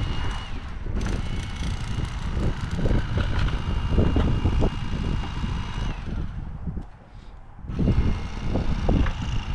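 Electric fillet knife running as it cuts perch fillets, its motor giving a steady whine over the rough buzz of the blades; it stops about six seconds in and starts again about two seconds later.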